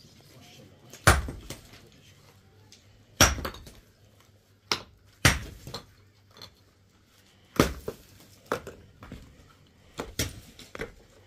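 A series of sharp knocks or clatters, about seven, spaced unevenly one to two seconds apart, each with a brief ring.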